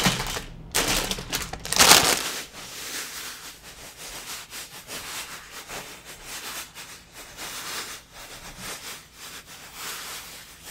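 Plastic bags full of LEGO bricks crinkling and rattling as they are handled and laid on a wooden table. The loudest crinkles come in the first two seconds, then quieter rustling with light clicks of bricks.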